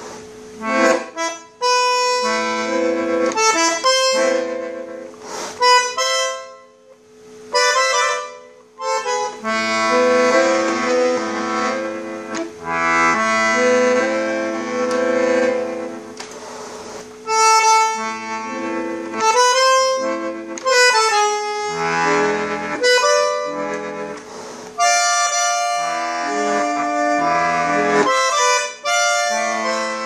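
An Alfred Arnold (AA) Premier bandoneon played in chords and melody, its bellows drawn open and pushed closed, with a held note under the changing chords and short breaks between phrases.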